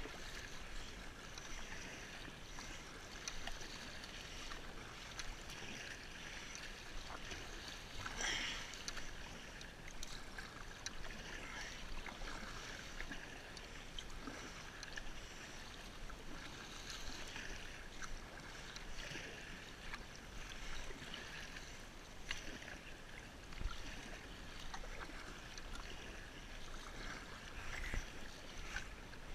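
Kayak paddle strokes dipping and splashing in choppy seawater, with small waves lapping against the hull; one louder splash about eight seconds in.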